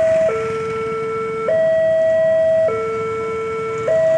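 Railway level crossing warning alarm sounding a two-tone signal, stepping between a higher and a lower tone about every 1.2 seconds, which means the barrier is down for an approaching train.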